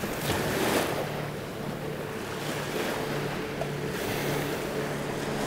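Small waves washing on a sandy beach, with wind on the microphone. A faint steady hum from a passing motorboat's engine comes in for a few seconds in the middle.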